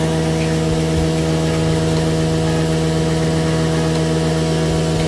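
Steady, even hum of a bulk milk cooling tank's machinery: the motor on top that turns the agitator paddle to stir and chill the milk.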